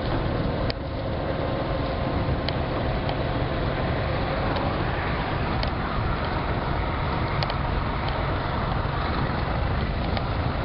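Steady rumble and road noise of a vehicle in motion, with a few faint clicks; the sound dips and cuts briefly under a second in.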